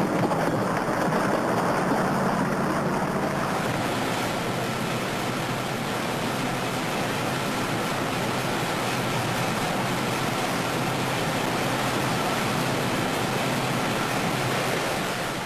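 Steady rushing of water, with a low engine hum under it for the first three seconds or so. About three and a half seconds in, the sound changes to a fuller, even hiss.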